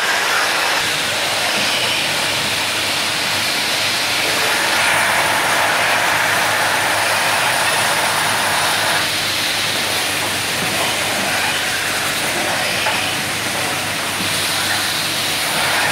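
Automatic valve-machining machines running in a factory hall: a loud, steady machine noise with no distinct knocks or tones, shifting slightly about nine seconds in.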